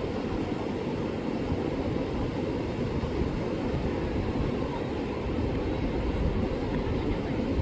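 Strong wind blowing across the microphone: a steady low rumble that grows a little louder about five seconds in.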